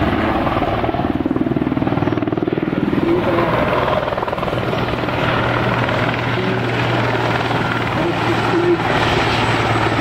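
Aérospatiale AS332 M1 Super Puma helicopter flying overhead in a display: the rapid, steady beat of its four-blade main rotor. A low hum grows stronger about four seconds in as the helicopter comes closer.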